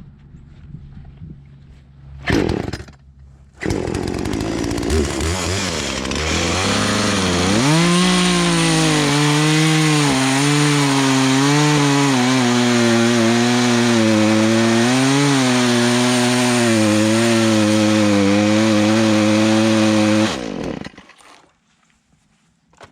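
Poulan Pro two-stroke chainsaw idling, briefly revved, then run at full throttle through a log. Its engine pitch dips and recovers under the load of the cut, testing a freshly adjusted high-speed carburetor mixture. The engine sound cuts off sharply near the end.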